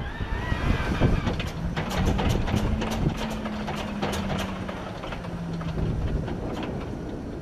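Junkers Ju 52's radial engine being cranked by its starter. A whine rises at the start, then the propeller turns over slowly with a steady low hum and irregular pops, but the engine does not catch. It is a failed start: something is binding somewhere in the freshly overhauled engine.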